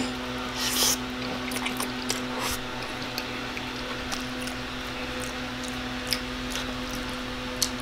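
Wet chewing and mouth noises of a person eating a mouthful of spaghetti, with a few sharp smacks, over a steady low hum.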